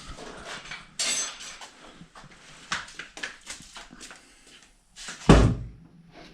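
Metal parts clinking and clattering as they are handled, with a heavy thud about five seconds in.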